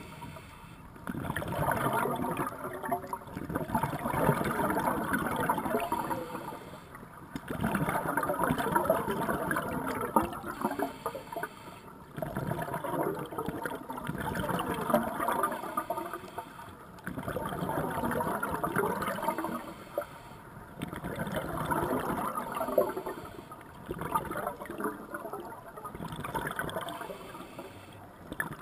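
Scuba regulator underwater: gurgling bubbles of exhaled air in bursts of two to three seconds, about every four to five seconds, with quieter gaps for each inhalation.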